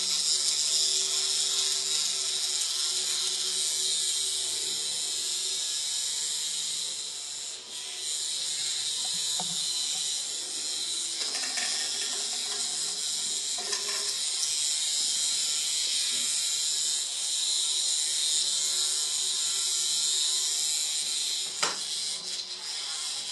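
Hexbug toy's small vibration motor buzzing with a high, hissing rattle as it skitters on tile. It drops away briefly about eight seconds in, and a few light knocks come through, the sharpest a little before the end.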